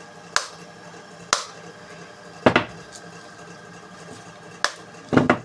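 Light hammer taps on the body of a running 4-pole cooler fan motor, five separate strikes at uneven gaps, over the motor's steady hum. The taps are meant to seat the newly replaced shaft bush and cure the kit-kit noise it made.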